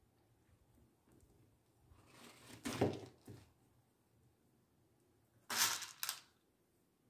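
Two short bursts of rustling and clicking from plastic beads being handled: a beaded cap laid down on a crinkly woven plastic sheet, then a sharper rattle about three seconds later.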